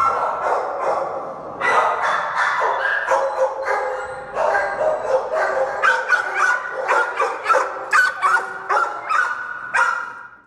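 Several kennelled shelter dogs barking over and over, their barks overlapping in a dense, continuous din.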